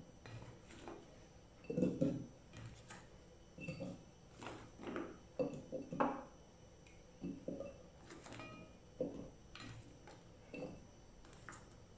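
Chunks of cut fruit dropped by hand into a glass blender jar and picked off a steel plate: a dozen or so irregular soft knocks and light clinks.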